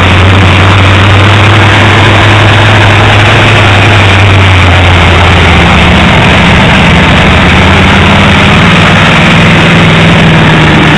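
Bounty Hunter monster truck's supercharged V8 running loud at a slow roll, its engine note stepping up in pitch about six seconds in as it pulls away. Heavily overloaded and distorted through an old camera phone's microphone.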